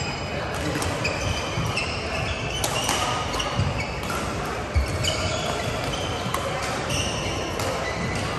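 Badminton doubles rally: sharp racket hits on the shuttlecock and short squeaks of shoes on the court mat, many times over, with a murmur of voices across a large hall.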